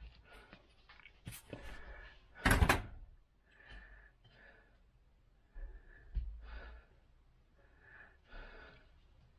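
Handling noises of small wooden parts and a plastic glue bottle on a workbench: scattered light knocks and rustles, with a louder short clatter about two and a half seconds in and another knock about six seconds in.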